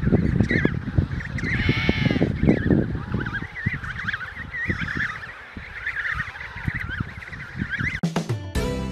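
Emperor penguin chicks calling in high, chirping whistles, with a few longer arching calls about two seconds in, over a low rumbling. About eight seconds in it cuts abruptly to acoustic guitar music.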